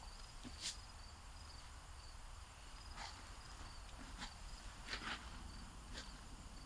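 Crickets chirping steadily in a faint high-pitched pulsing pattern, with about five sharp snaps or clicks scattered through it.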